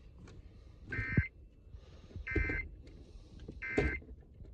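Emergency Alert System end-of-message data tones: three short bursts of warbling two-tone digital code, about 1.3 seconds apart, closing out a test broadcast.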